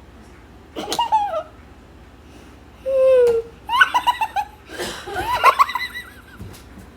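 A person's wheezing laughter, in several high-pitched bursts.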